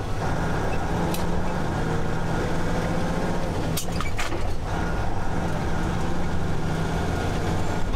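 Semi truck's diesel engine running steadily, heard from inside the cab while driving, with a few sharp clicks or rattles about one second and four seconds in.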